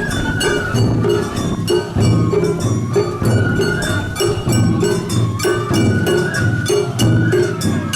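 Japanese festival music: a high piping melody over drum beats and quick, rhythmic metallic clanking percussion.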